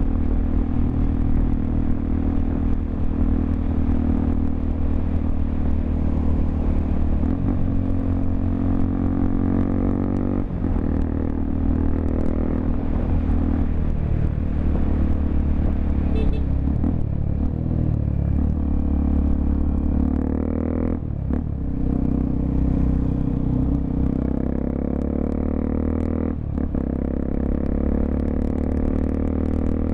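Honda XRE 300's single-cylinder four-stroke engine running under way through an aftermarket Roncar 2-way muffler, its pitch rising and falling with the throttle. The note breaks briefly three times, about a third of the way in, two-thirds in and near the end, as at gear shifts.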